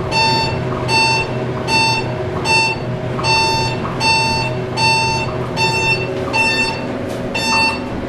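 Montgomery elevator's electronic floor-passing beep, a short two-tone beep repeating about once a second as the car descends past each floor, over the steady low hum of the moving car.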